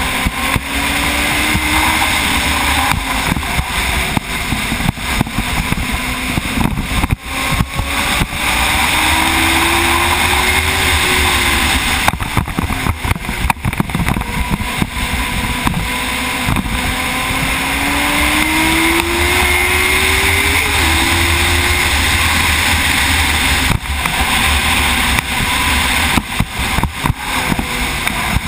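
Racing motorcycle's engine running hard at race speed, its pitch climbing again and again and broken by short dips, with heavy wind rushing over the bike-mounted camera.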